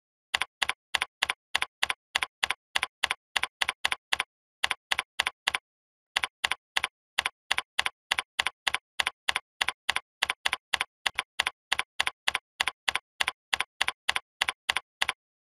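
Computer keyboard typing: a steady string of single key clicks, about three a second, with two short pauses, as a line of text is typed.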